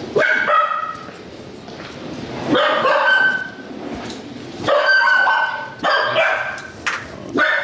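A dog barking in several short bouts, high-pitched yips and barks.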